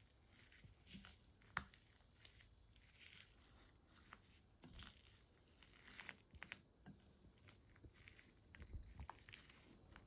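Near silence with faint scattered clicks and soft rustles of chopsticks stirring and lifting sauce-coated rice cakes and perilla leaves on a plate, with one sharper click about one and a half seconds in.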